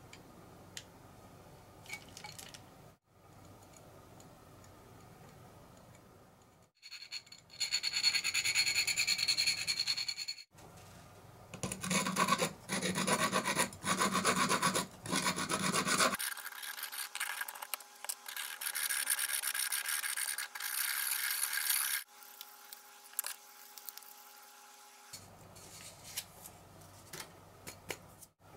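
A hand file scraping back and forth over the end of a stainless steel pipe in several runs of quick, even strokes, starting about a quarter of the way in and stopping about three quarters of the way through.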